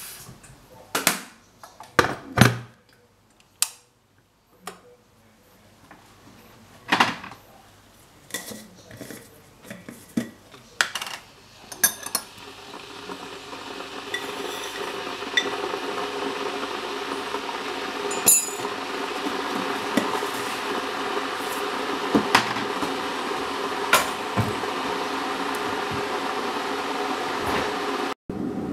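Kitchen utensils and dishes clinking and knocking during pancake-making, in scattered separate strikes. About halfway through, a steady hum builds up and carries on under a few more clinks.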